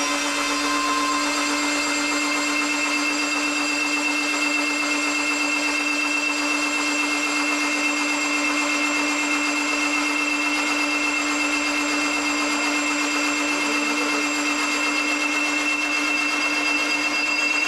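Starter motor cranking a freshly assembled 2234cc air-cooled VW engine to build oil pressure for the first time: a steady, even whine that holds at one pitch.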